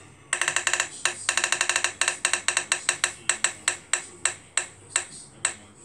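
Spin-the-wheel phone app ticking through the phone's speaker as its roulette wheel spins: a rapid run of clicks, about ten a second, that slows steadily to a tick every third of a second or so as the wheel coasts to a stop.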